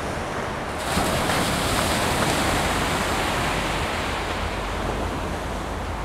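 Sea waves on a beach: a wave breaks about a second in, its wash surging and then slowly fading. A steady low wind rumble on the microphone runs underneath.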